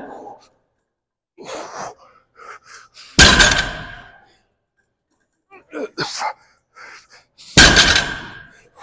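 Two loud, sharp exhales into a clip-on microphone during weightlifting reps, about three and seven and a half seconds in, each fading over about a second, with fainter breaths and small knocks between.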